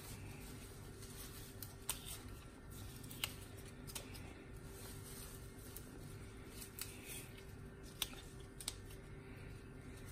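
Faint, sparse snaps and rustles as fresh parsley leaves are picked off their stems by hand, over a steady low hum.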